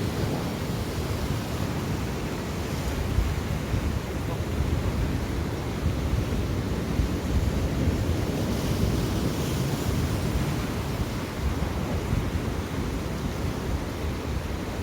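Sea waves washing against a rocky shore, with wind buffeting the microphone in a steady low rumble.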